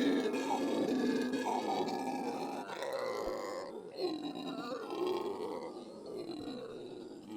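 Monkey calling: a continuous run of low, harsh vocal calls that bend up and down in pitch, fading gradually toward the end.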